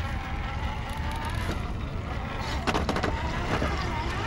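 Electric motor and drivetrain whine of a Vanquish VS4-10 Phoenix RC scale crawler, its pitch wavering with the throttle as the truck crawls through shallow water over rock. A quick cluster of clicks and knocks a little under halfway through.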